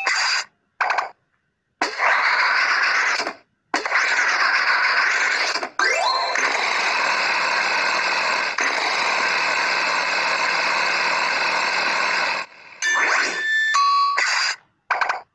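Cartoon game sound effects from a letter-tracing app: short chime tones, then a long steady buzzing noise as a toy lawnmower mows the grass letter, ending about 12 seconds in, followed by more chime tones near the end.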